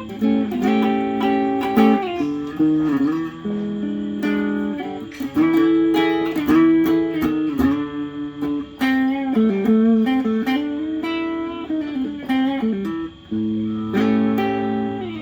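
Electric guitar, a Mexican-made Fender Telecaster, played solo: picked single-note phrases and chords, with string bends in the middle.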